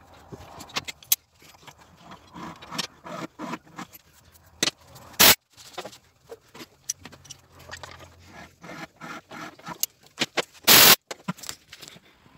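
Irregular scraping, rubbing and light metal clinks as a rag is wiped over a metal engine cylinder head and the parts are handled. Two much louder short noises come about five and eleven seconds in.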